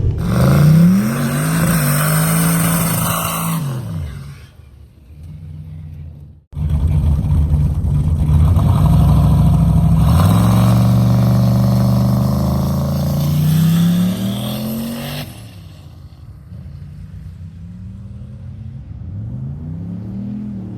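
A turbocharged LS V8 drag car accelerating hard, its engine pitch climbing in steps with the shifts. The sound cuts off suddenly about six seconds in, picks up again at full throttle with the pitch rising, then drops to a lower, uneven engine note. This was a botched pass: a failed wastegate dome pressure sensor let boost spike, and the overboost safety cut it back.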